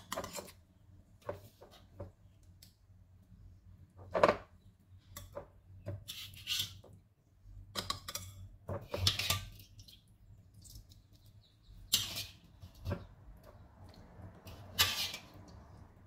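Spatula and spoon knocking and scraping against a wok and a ceramic bowl as meatballs and sauce are served: irregular clinks and scrapes, the loudest about four seconds in, over a faint low hum.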